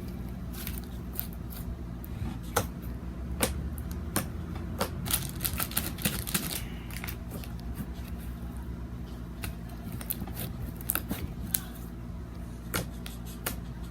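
Homemade slime being squeezed and handled, making irregular sticky clicks and small pops.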